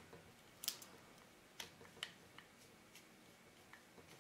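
Faint, scattered small clicks of a precision screwdriver tip on a tiny screw and the metal focus ring of a Nikkor-Q 135mm f/2.8 lens as one of the focus-ring screws is driven in; about five clicks, the sharpest under a second in.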